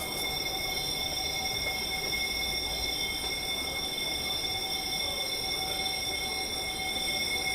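Electric emergency alarm bell ringing continuously, a steady metallic ring made of several high tones with no break.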